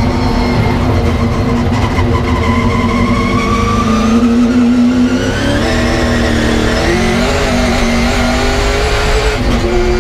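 A 625 hp LS V8 race engine running hard at race pace, heard from inside the cabin, holding steady through a corner and then climbing in pitch as it accelerates onto the straight. A fainter high whine rises along with it.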